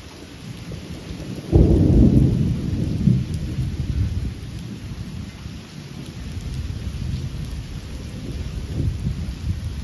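A sudden loud clap of thunder about a second and a half in, rumbling on and slowly dying away, with a smaller swell near the end, over steady rain.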